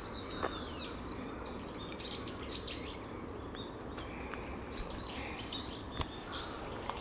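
A flock of small birds chirping and calling, many short high notes and brief rising and falling calls overlapping, with a few faint ticks among them.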